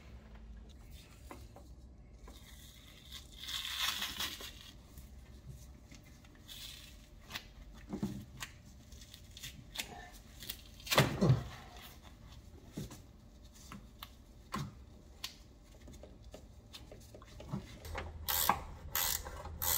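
A car's engine wiring loom being worked loose by hand: scattered plastic clicks and rustling, a tearing rustle about four seconds in, and a louder scrape around eleven seconds in.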